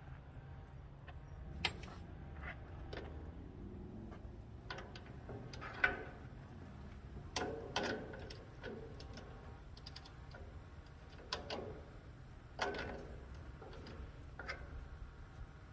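Scattered metallic clanks and taps, about a dozen spaced irregularly, each with a short ring, from tools and metal parts being handled during work on a truck's transfer fuel tank. A faint low hum lies underneath.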